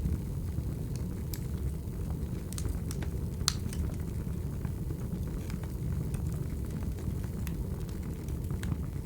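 Wood fire crackling: a steady low rumble of burning logs with scattered small pops, the sharpest about three and a half seconds in.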